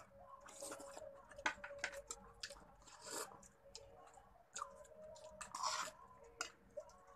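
Eating sounds: light clicks of a spoon and clam shells against plates, with short slurps of butter-garlic sauce sucked from the shells, about three times. A faint steady hum runs underneath.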